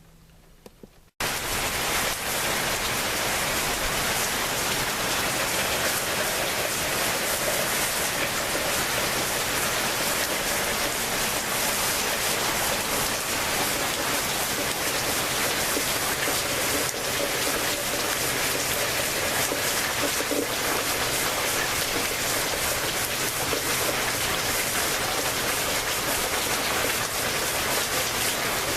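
Rain in a rainstorm, falling steadily and evenly. It starts abruptly about a second in.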